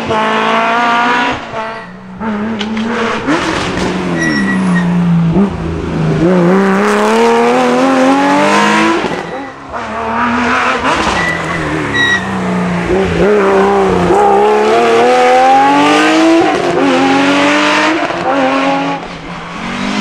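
Rally cars at full throttle through a hairpin: engine notes climbing in repeated sweeps that break off at each lift-off and gear change. Most of it is a Porsche 911 Carrera RS 3.0's air-cooled flat-six.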